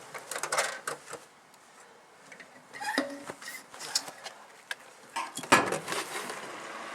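Scattered clattering and knocks of things being handled, with a short rush of noise about five and a half seconds in.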